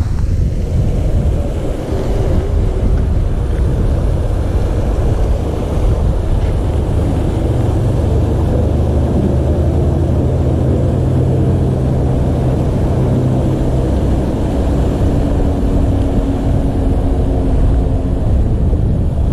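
Wind buffeting the microphone, a steady low rumble, with a low steady mechanical hum joining it for several seconds in the middle.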